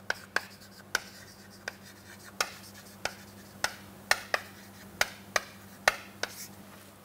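Chalk writing on a chalkboard: about a dozen short, sharp taps and scrapes at an uneven pace as the letters are formed.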